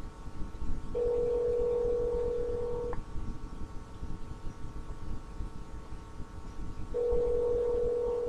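Telephone ringback tone heard on the calling line: a steady ring about two seconds long, then four seconds of quiet, then a second ring that is still sounding at the end.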